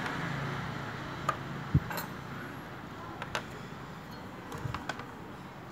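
Light clicks and taps of plastic piping-bag couplers and a metal piping tip being handled on a wooden table, with a dull knock a little under two seconds in, over faint steady background noise.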